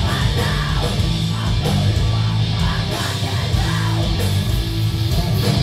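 Live rock band playing a song: two electric guitars, a bass guitar and drums, loud and continuous.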